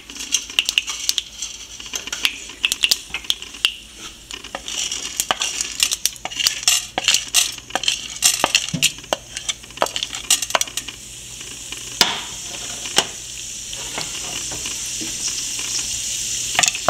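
Mustard seeds spluttering in hot oil in a frying pan: sharp, irregular pops over a sizzle. The sizzle becomes steadier and a little louder in the second half as chana dal fries in the oil.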